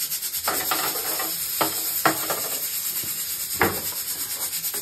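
Fresh puris being stacked into a round casserole: four light knocks and clatters as the puris and the casserole's lid are handled, over a steady hiss.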